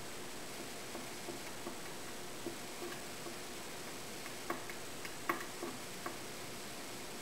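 Light, irregular clicks and taps of a glue spreader working against fluted wooden dowels as glue is spread over them, over a faint steady hiss. The sharpest taps come a little after the middle.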